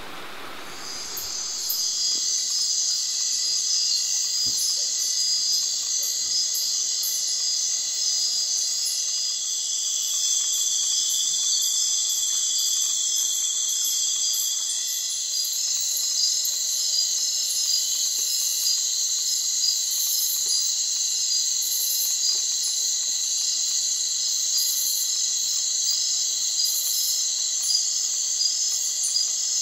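Dense night chorus of tropical insects such as crickets and katydids: many shrill, steady trills layered together, with rapid pulsing higher up. It comes in about a second in, replacing a steady hiss.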